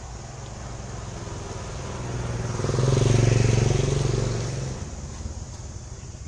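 A motor vehicle driving past, its engine and road noise growing louder to a peak about three seconds in, then fading away.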